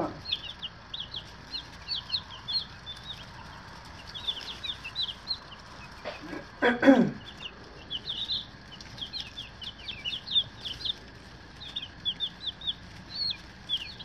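A brooder of day-old broiler chicks peeping continuously, a dense stream of short, high, falling peeps from many birds at once. A person's voice gives a brief murmur about seven seconds in.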